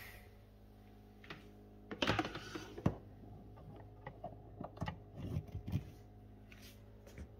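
A blender's power plug and cord being handled and pushed into a wall outlet, heard as scattered clicks, scrapes and rustles, the sharpest about three seconds in, over a faint steady hum. The plug is being reseated to test a blender that will not power on.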